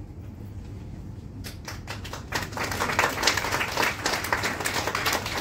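Audience applauding: scattered claps begin about a second and a half in and swell into full applause.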